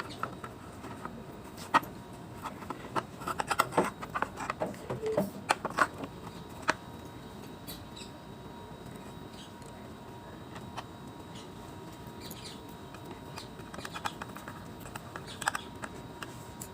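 Scattered light clicks and knocks of the plastic and metal parts of an electric iron being handled and fitted back together, in two busy spells with a pause between.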